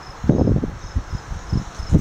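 An insect chirping in a steady, fast high-pitched pulse, about four or five chirps a second, over low rumbling thumps on the microphone. The loudest thumps come about a third of a second in and again near the end.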